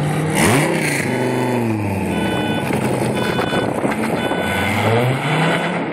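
Loud sports-car exhaust revving: the engine pitch sweeps up sharply about half a second in, falls back, holds, and climbs again near the end as the cars pull away.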